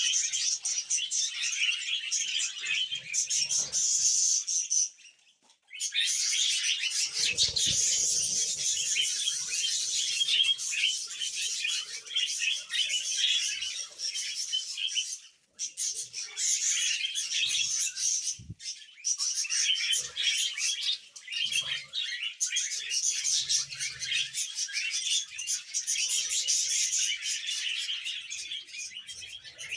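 A flock of budgerigars chattering and chirping without a break, except for two short silent gaps, one about five seconds in and one near the middle.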